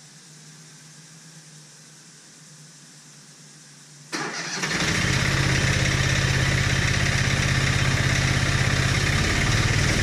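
Vermeer BC700 wood chipper's engine starting about four seconds in, then running steadily and loudly.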